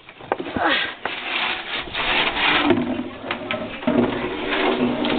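Empty plastic gallon milk jug being scraped and knocked across the floor as French bulldog puppies tug at it, a continuous rubbing noise with many small clicks and knocks.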